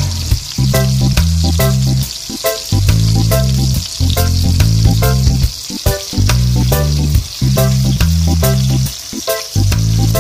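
Butterflied milkfish (bangus) sizzling in shallow oil in a frying pan, with a steady hiss of frying. Background music with a heavy bass line and a steady beat plays over it and is the loudest part.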